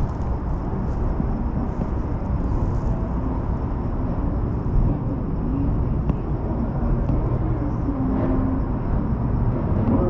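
Las Vegas Monorail train running, heard from inside the car: a steady low rumble with a faint, steady high tone above it.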